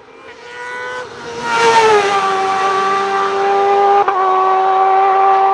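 Race car engine at high revs passing close by, its note swelling in over the first two seconds and dropping in pitch as it goes past, then holding a steady high-pitched note. There is a brief break in the note about four seconds in.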